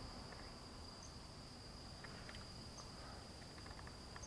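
Faint, steady, high-pitched insect trill held on one unbroken note, with a few faint ticks scattered over it.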